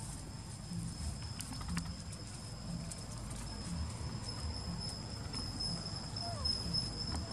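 Steady high-pitched insect trill, growing louder about halfway through, over a low regular pulse about once a second.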